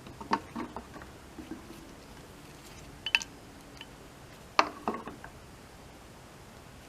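A few scattered sharp clicks and light knocks of hard objects. The loudest come about three seconds in and about four and a half seconds in, in pairs.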